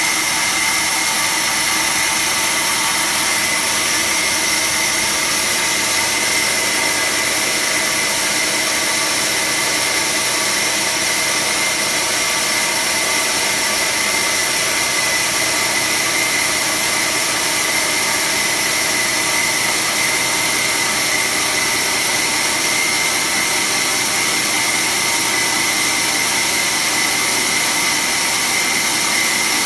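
Automatic band saw running steadily as it cuts sheet stock: a continuous whine with a hiss, unchanged throughout.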